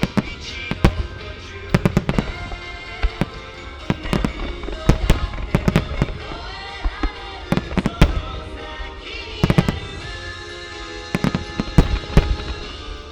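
Aerial fireworks shells bursting in irregular clusters of sharp bangs, several close together at a time, over music playing throughout.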